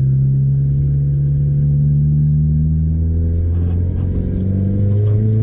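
Toyota Starlet's turbocharged 1.5-litre four-cylinder engine and exhaust droning while driving, heard from inside the cabin. The engine note sinks slightly, then rises again about four seconds in as the car accelerates.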